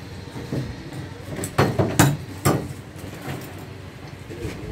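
A quick cluster of sharp metal clanks and knocks, about four in a second around the middle, from tools and parts being handled against an engine block.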